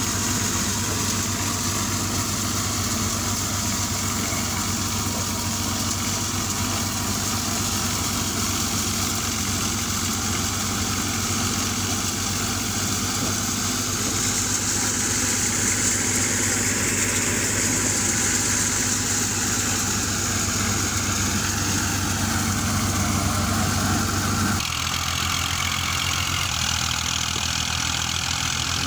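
Massey Ferguson 240 tractor's three-cylinder diesel engine running steadily under load as it drives a wheat threshing machine, the thresher's steady whirring noise mixed in. The sound changes abruptly about four seconds before the end.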